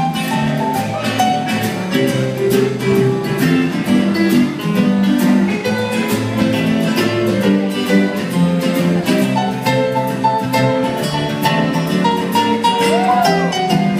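Live acoustic band playing, with acoustic guitars strumming and picking over bass and a drum kit keeping a steady beat.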